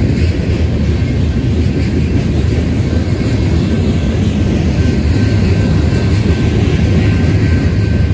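Covered hoppers and tank cars of a mixed freight train rolling past: a steady, loud low rumble of wheels on rail, with a faint high steady tone above it.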